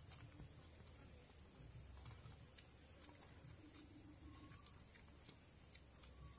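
Near silence: quiet background with a steady high-pitched hiss and a few faint clicks.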